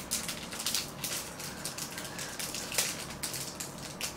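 Foil card-pack wrapper crinkling and crackling in quick, irregular bursts of rustle as it is squeezed and pulled at by hand to tear it open.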